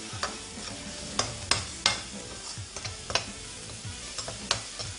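A spatula stirring fried onions and ginger-garlic paste in a wok, knocking against the pan in several sharp, uneven clicks over a steady low sizzle of frying.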